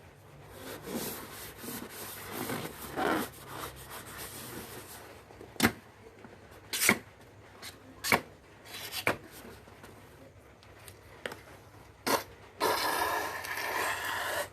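A balloon being rubbed and squeezed by hand: a scraping rub for the first few seconds, then several sharp snaps about a second apart. Near the end comes a denser hissing, squealing stretch of about two seconds.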